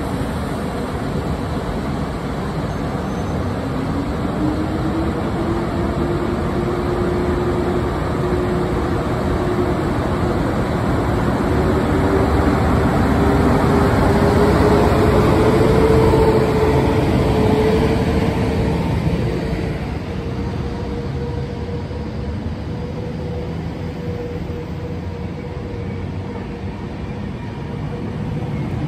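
PKP Intercity EP09 electric locomotive pulling a passenger train away from the platform and passing close by. A whine climbs in pitch as it gathers speed, and the noise is loudest about halfway through as the locomotive goes by. After that the coaches roll past with steady wheel-on-rail rumble.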